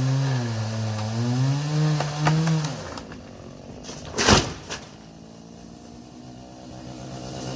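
Chainsaw engine running with its pitch wavering, then dropping away about three seconds in. A single loud thud comes about four seconds in, and the saw's steady, lower idle returns near the end.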